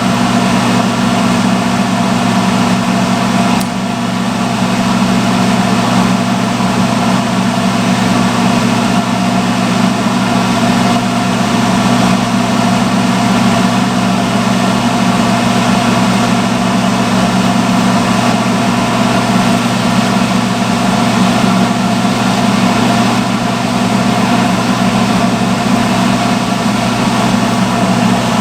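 Salon hooded hair dryer running on its hottest setting: a loud, steady hum of the motor with the rush of blown air, dipping briefly about four seconds in.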